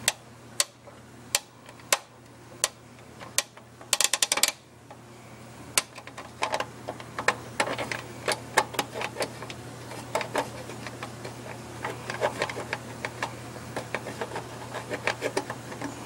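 Rotary selector switch of a Maxi-Heat electric space heater clicking through its detents as the knob is turned: single clicks at first, a quick rattle of clicks about four seconds in, then a long run of dense, irregular clicks. A steady low hum runs underneath.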